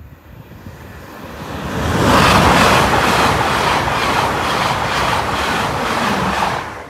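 LNER Class 801 Azuma train passing over the level crossing, building up and then running loud with a regular clatter of wheels at about three beats a second, cutting off sharply near the end as the last carriage goes by.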